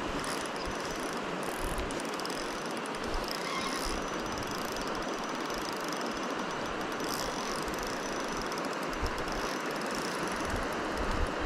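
Spinning reel cranked steadily while playing a hooked sea trout, over the continuous rush of a fast river.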